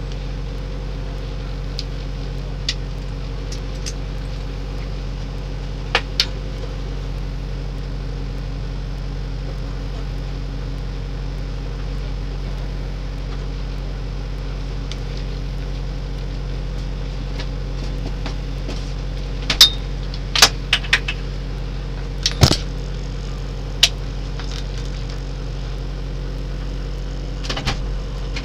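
Steady low hum inside the cabin of a stationary Peugeot 309 rally car, with a handful of short sharp clicks and knocks, most of them bunched together about two-thirds of the way through.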